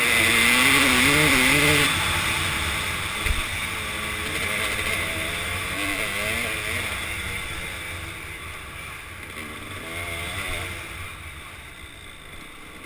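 Kawasaki KDX200 single-cylinder two-stroke dirt bike engine revving up and down as it is ridden along a trail, heard from the rider's helmet. It is loudest for the first two seconds, then eases off and gets quieter toward the end, with one sharp knock about three seconds in.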